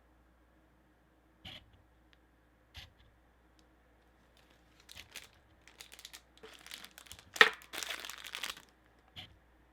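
A couple of soft knocks, then packaging crinkling and rustling as it is pulled apart by hand, with the sharpest crackle about seven and a half seconds in.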